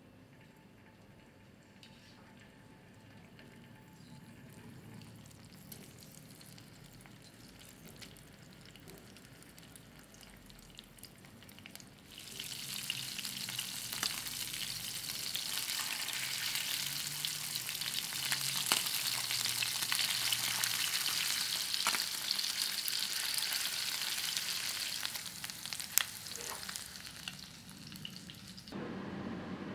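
Mackerel fillets frying in olive oil in a non-stick pan: a faint sizzle while the pieces are laid in with metal tongs, then loud, steady sizzling from about twelve seconds in, with sharp clicks of the tongs against the pan. The sizzle cuts off suddenly near the end, leaving a low hum.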